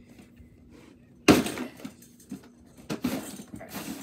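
Plastic storage drawers being pushed into a plastic drawer unit and knocking against its frame: a loud clack about a second in, then a few lighter knocks and scrapes, and another bump near the end.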